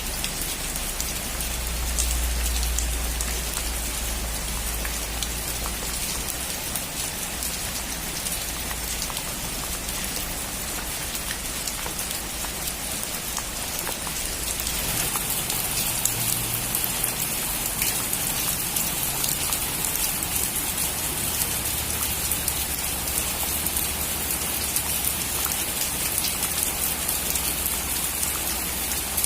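Steady rain falling on a roof, with many close drops ticking. A low rumble sits under it in the first few seconds, and the rain grows heavier about halfway through.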